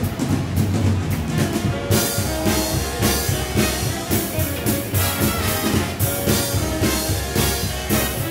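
Instrumental music with a steady beat, drums and brass.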